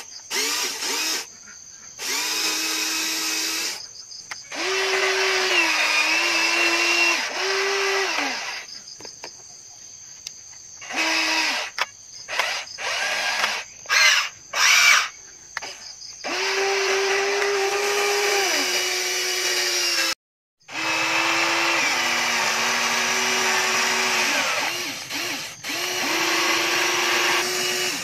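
Electric motors of a Huina RC toy excavator whining in stop-start runs of a few seconds as the arm and bucket move. Its pitch steps up and down between runs.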